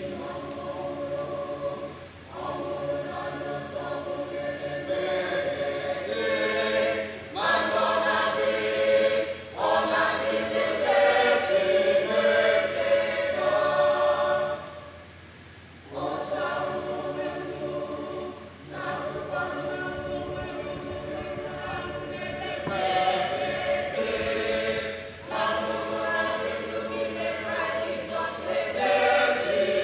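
Church choir singing an Easter anthem a cappella, in phrases broken by short breaths, with a pause of about a second and a half midway.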